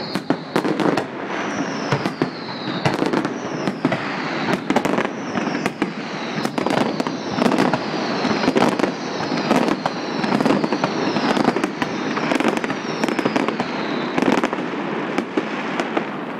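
Fireworks display going off in a rapid run of bangs over a continuous crackle, with high whistles that slide down in pitch, heard over and over about once a second.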